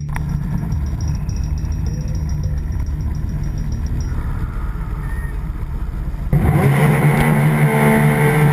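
Racing jet ski engines running at high revs, with a sudden, much louder engine note about six seconds in.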